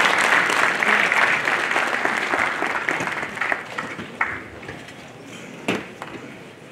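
Hand clapping from a small crowd that thins out over the first few seconds and dies away to a few scattered claps, with one sharp knock about a second before the end.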